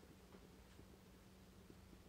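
Near silence: faint room tone with a low steady hum and a few faint ticks.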